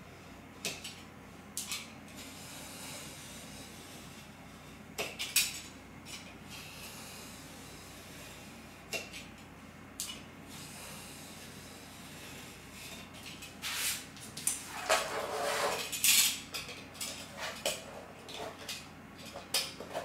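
Utility knife scoring a sheet of Foamex PVC foam board along a steel ruler: a few scattered scrapes and clicks, then a quick run of repeated cutting strokes with light metallic clinks in the last several seconds.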